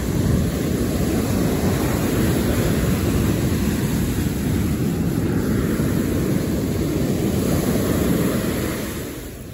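Ocean surf breaking and washing up a sandy beach: a steady rumble of waves that eases off near the end.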